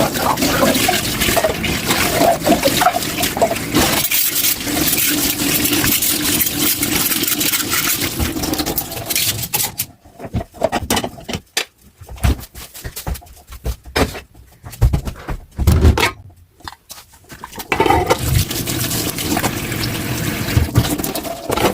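Tap water running and splashing in a kitchen sink. About ten seconds in, the water stops and a few scattered low knocks and thumps follow. The water runs again a few seconds before the end.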